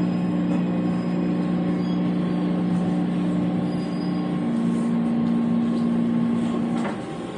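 Taipei MRT metro train running, heard from inside the carriage: a steady rumble with a humming tone that changes pitch about halfway through, then stops near the end as the sound gets quieter.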